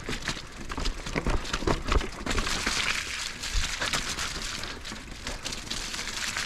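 Electric mountain bike on a rough, wet trail: tyres crunching and the bike rattling, with frequent knocks and clicks.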